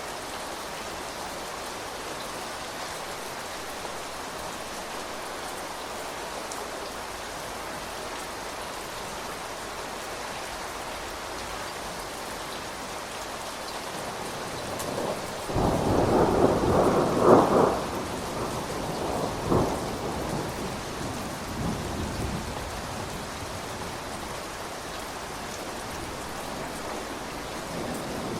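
Steady rain falling, with a clap of thunder a little over halfway through that rolls on in a few fading rumbles for about six seconds.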